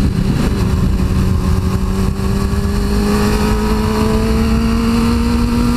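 2002 Suzuki GSX-R 600's inline-four engine running under steady throttle, its pitch climbing gradually as the bike accelerates in gear, with wind rushing over the microphone.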